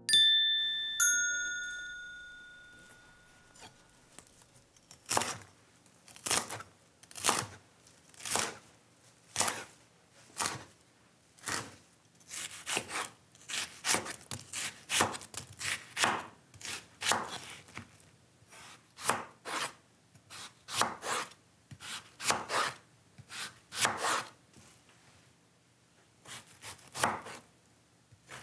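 A chime rings at the start and fades over a few seconds. Then a chef's knife cuts onion and then Korean radish on a wooden cutting board: regular chopping strokes, about one a second, quickening to about two a second for a while in the middle.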